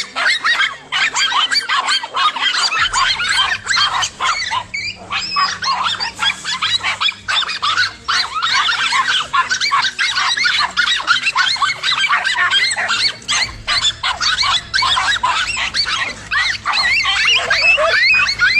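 A dense chorus of many animals calling at once: overlapping high yelps and honks that never break off.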